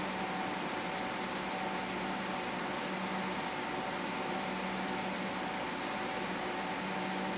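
Steady mechanical hum with an even hiss, like a fan or ventilation unit running; it holds constant with no knocks or clicks.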